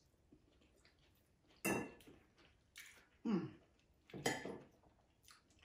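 Metal fork scraping and clinking against a ceramic dinner plate a few times, in short separate strokes, as food is picked up.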